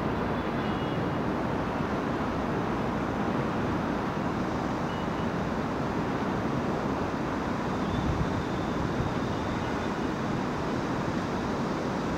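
Heavy trucks' engines running amid road traffic, a steady noise without breaks.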